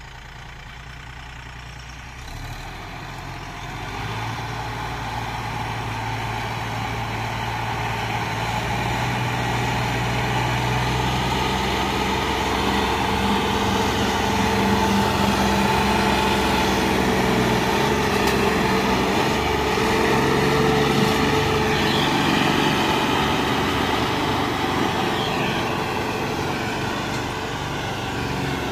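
John Deere 5210 tractor's three-cylinder diesel engine running hard as it pulls a subsoiler deep through dry, hard ground. It grows louder as it draws close, holds for several seconds, then eases off as it moves away.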